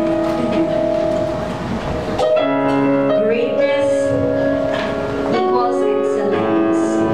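Worship band playing slow, held keyboard chords that change about every three seconds, with a low bass note underneath.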